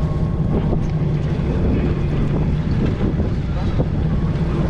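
Boat engine running steadily with a low rumble, and wind buffeting the microphone.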